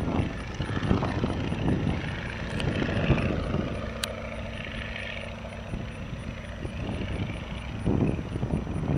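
Stearman biplane's radial engine and propeller droning during a fly-by, a steady engine hum clearest in the middle, with gusts of wind rumbling on the microphone.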